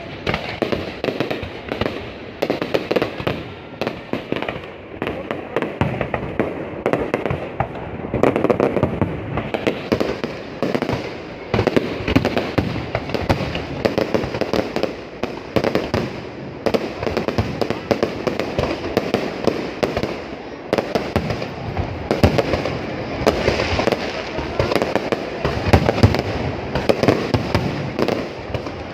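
Aerial fireworks display bursting in rapid, overlapping succession: a dense, unbroken run of bangs and crackle with no pause.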